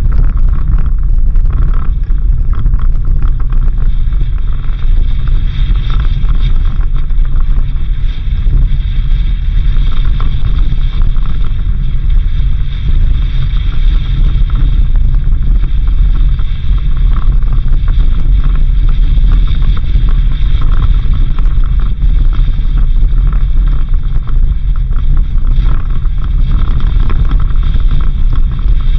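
Suzuki Jimny driving along a dirt road: a steady, loud low drone of engine and tyre noise.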